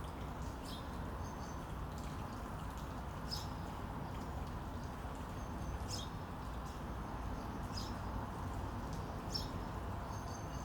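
Small songbirds giving short, high chirps every second or two over a steady low background hiss of outdoor ambience.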